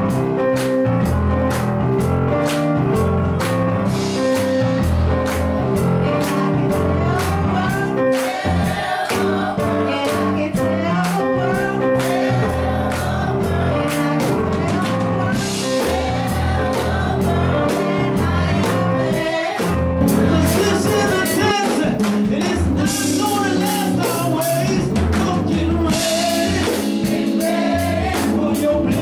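Gospel choir singing, led by a woman on a microphone, over instrumental backing with a steady drum beat.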